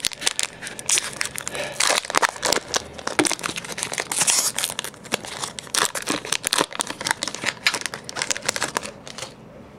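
Foil wrapper of a Pokémon Neo Destiny booster pack crinkling and tearing as it is pulled open, a dense run of crackles that dies away shortly before the end.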